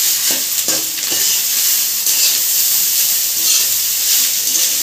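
Rice frying in a metal kadai over a gas flame, with a steady sizzle and a metal spatula scraping and stirring against the pan, several strokes close together in the first second.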